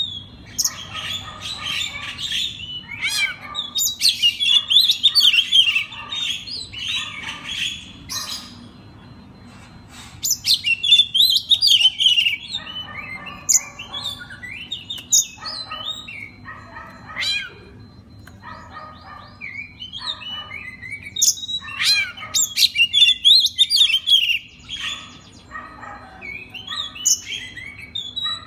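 Oriental magpie-robin singing a long, varied song of loud whistles, rapid trills and harsh chattering phrases, with a short pause about eight seconds in. The song is a kept bird's rich 'isian' repertoire of learned phrases.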